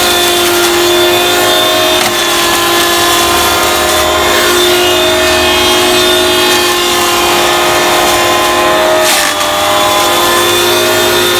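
Garden Groom Midi corded electric hedge trimmer running steadily while trimming a hedge, its motor giving a steady pitched hum. About nine seconds in the pitch briefly dips, then recovers.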